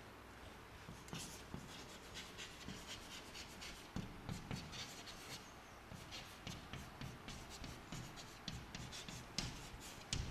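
Chalk writing on a blackboard: a faint run of short scratches and taps as letters and numbers are written, with a sharper tap near the end.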